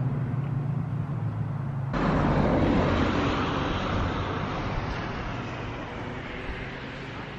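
A steady motorcycle engine note. About two seconds in it cuts abruptly to a loud, even rush of riding wind over a faint engine hum, which fades away near the end.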